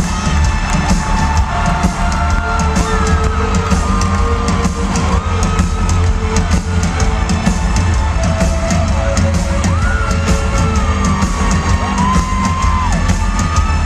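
Rock band playing live in an arena, heard from the audience through a camcorder microphone: a heavy, steady beat of drums and bass under sustained lead lines that slide up and down in pitch.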